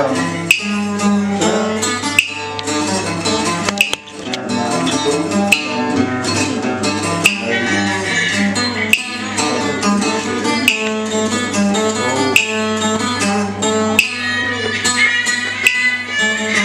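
Acoustic guitar strummed in a steady rhythm, accompanying a Vietnamese two-string bowed fiddle (đàn nhị) playing a gliding melody, with a brief break about four seconds in.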